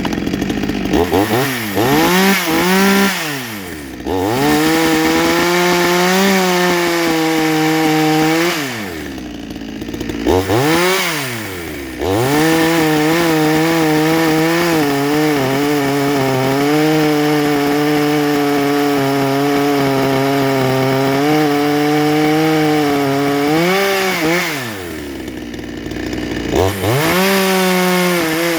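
62cc two-stroke chainsaw revved hard and cutting wood in long steady stretches, its pitch dropping back to idle twice between cuts before it revs up again. Its ignition timing is advanced too far, which the owner says makes it pop and not want to run well at high revs.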